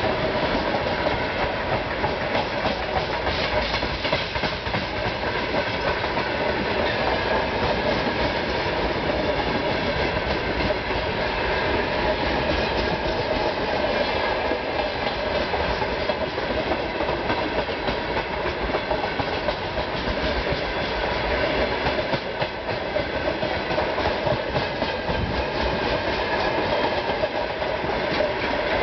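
Freight train of open gondola wagons rolling past close by: a steady rumble of wheels on rails with many repeated clicks as the wheels run over the track.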